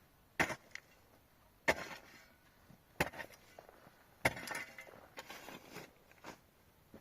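Heavy hand-tool blows striking wood or earth, four strikes about a second and a half apart, the last followed by about a second of smaller knocks.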